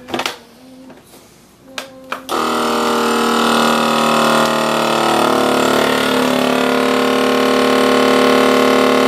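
KitchenAid vacuum sealer: a few clicks as the lid is pressed shut, then about two seconds in its pump starts and runs with a loud, steady hum, drawing the air out of a bag of ground pork.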